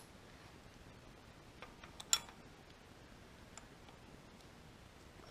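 A few light metallic clicks as a pilot bearing puller's steel fingers and frame are fitted against the crankshaft's pilot bearing, the sharpest about two seconds in.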